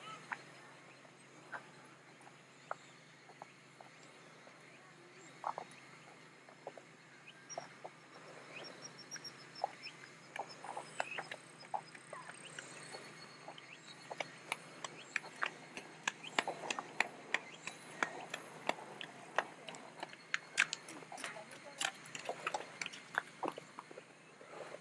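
Outdoor garden ambience: a faint steady high insect hum with many short, irregular chirps or clicks, sparse at first and much more frequent in the second half.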